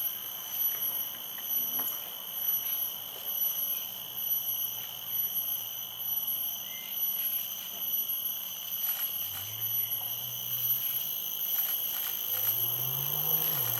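Steady high-pitched insect chorus sounding at several pitches at once, swelling and fading about once a second. A low hum comes in about two thirds of the way through and rises in pitch near the end.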